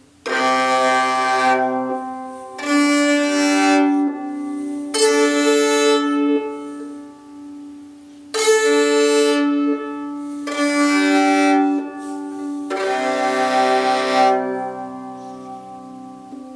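Eight-string Hardanger viola d'amore played in six separate bowed strokes of about a second and a half each. The sympathetic under-strings keep ringing between the strokes and after the last one fades near the end.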